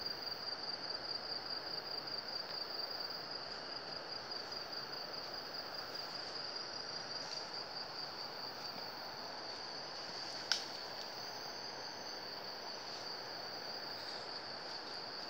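Rainforest insect chorus: a steady high-pitched trill that pulses rapidly for the first few seconds, over a constant hiss. A single sharp click comes about ten seconds in.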